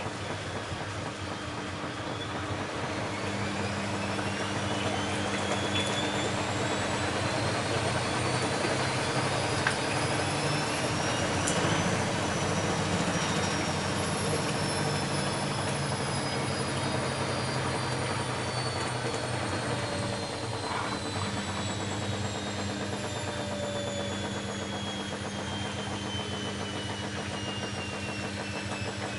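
Bosch Maxx WFL 248Y front-loading washing machine spinning: the motor's whine rises in pitch for about eleven seconds as the drum speeds up, then falls slowly as the drum slows, over a steady hum.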